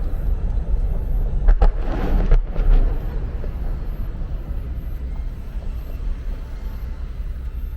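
Fireworks: a continuous low rumble of bursts and their echoes, with sharp bangs about a second and a half and two and a half seconds in. The rumble then slowly fades.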